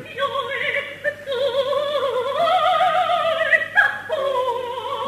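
A female opera voice sings sustained notes with a wide vibrato, stepping up in pitch and then down again about four seconds in. This is an old live recording with a steady low hum beneath.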